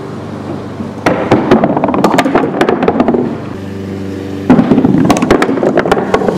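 Bowling balls rolling across a wooden plank floor with a steady rumble, then crashing into wooden pins, which clatter and knock against each other and the boards. This happens twice, about a second in and again about four and a half seconds in, and the pin clatter is the loudest part.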